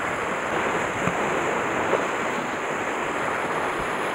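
Sea surf washing against shoreline rocks, a steady rush of wave noise with some wind on the microphone.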